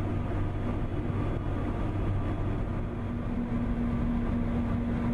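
Airbus A400M Atlas turboprop engines droning steadily, heard inside the cockpit in flight, with a steady low hum under a rushing noise.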